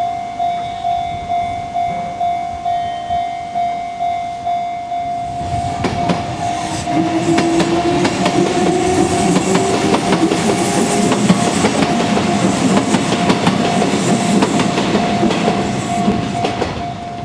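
Japanese level-crossing warning bell ringing at about two strikes a second. About five seconds in, a Kintetsu electric train runs through for some ten seconds: wheels clatter over the rail joints and a whine rises slightly in pitch. The bell keeps ringing under it.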